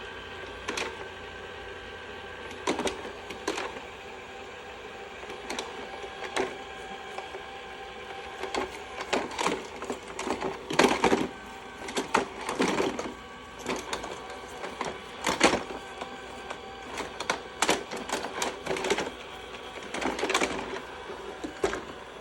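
Shark robot vacuum running with a steady motor hum, broken by irregular clicks and clatters, which come thicker from about eight seconds in, as it moves and turns while failing to dock on its charging base.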